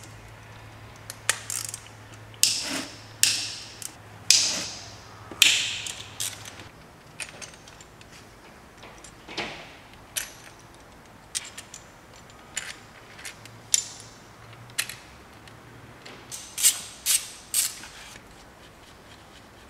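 Irregular sharp metallic clicks and clinks, a few at a time, from a hand tool and small steel parts as the Torx screws and camshaft bearing caps come off a VW/Audi 1.8L turbo cylinder head. The clicks come thickest in the first few seconds and again near the end.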